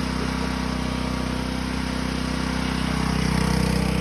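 Small gasoline engine of a QH13R micro mini excavator running steadily, swelling slightly about three seconds in.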